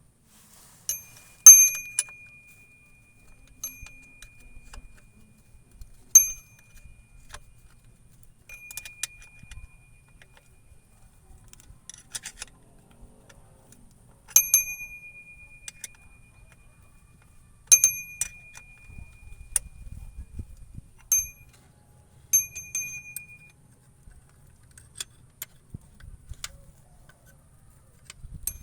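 Metal hand tools clinking against metal during the repair work: about a dozen sharp strikes at irregular intervals, many leaving a brief ringing tone, the loudest about a second and a half in.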